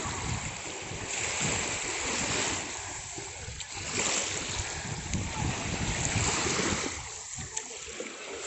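Small sea waves washing in, surging every couple of seconds, with wind rumbling on the microphone.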